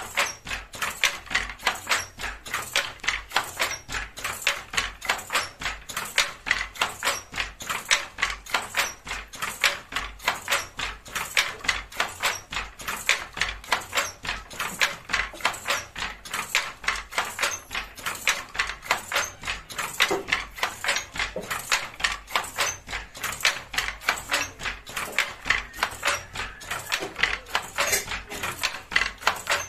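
Fly-shuttle handloom clacking in a fast, even rhythm: the shuttle is thrown across the silk warp by pulls on the picking cord and the sley beats up each pick, giving a steady train of sharp knocks.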